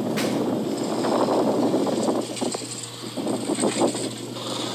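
Bicycle rattling and jolting over a bumpy dirt road, with wind rushing over the camera's microphone. A run of rapid knocks comes about two seconds in.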